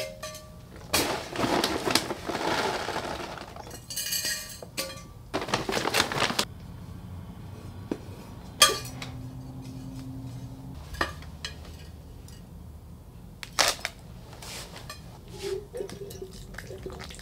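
Potting mix being scooped, poured and stirred by hand. There are several rustling, pouring bursts in the first six seconds or so, then quieter handling with a couple of sharp knocks against a pot.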